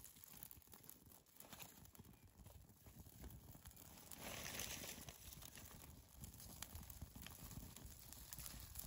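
Faint crackling of birch bark and wood shavings catching fire, small dry clicks and rustles, with a brief louder rustling rush about four seconds in.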